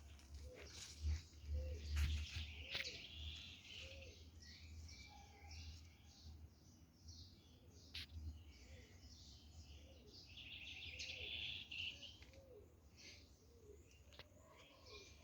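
Several garden birds chirping and twittering, with a dense fast trill about ten seconds in and a lower call repeating now and then. A low rumble and a few sharp clicks sit under the birdsong in the first few seconds.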